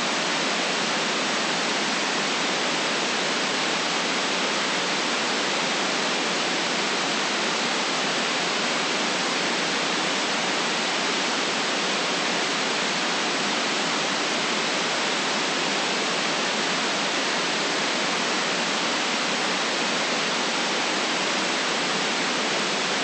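Steady white noise for sleep: an even, unchanging hiss with no deep bass and no top treble.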